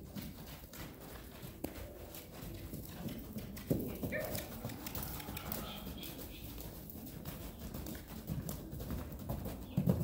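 An Orlov-Rostopchin mare's hooves beating on sand footing as she canters loose: a steady run of hoofbeats, with a louder thud about four seconds in and again near the end.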